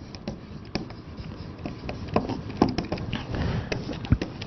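Dry-erase marker writing on a whiteboard: a string of short scratchy strokes and taps as the words are written out.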